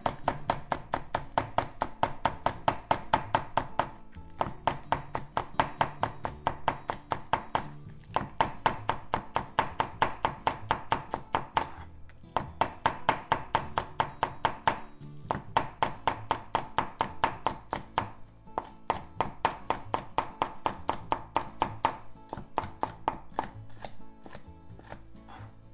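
Kitchen knife rapidly slicing green onion on a wooden cutting board: quick, even knocks of the blade on the board, about four or five a second, in runs of a few seconds with short pauses between. Background music plays underneath.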